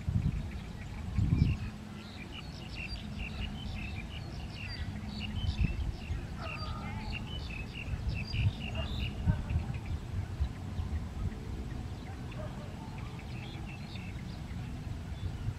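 Small birds chirping rapidly in short high notes, thickest in the first half and thinning out later, over a steady low rumble.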